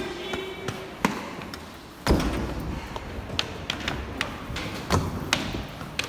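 Footsteps on a hard floor: a string of sharp, uneven footfalls, about two a second, with a heavier thud about two seconds in.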